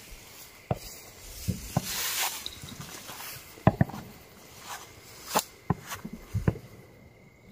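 Footsteps through tall dry grass, the blades rustling as they brush past, with irregular sharp crunches and knocks from the steps.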